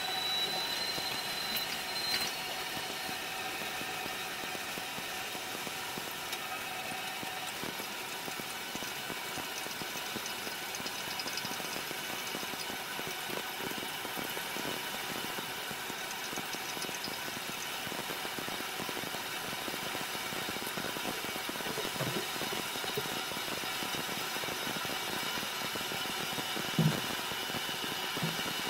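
Steady hiss of water spraying from a pump-up garden sprayer's shower wand onto a bathtub, its trigger locked open and running on the tank's pumped-up pressure. A brief knock near the end.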